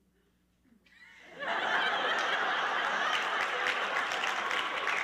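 Brief quiet, then about a second and a half in a live theatre audience breaks into laughter and applause that holds steadily.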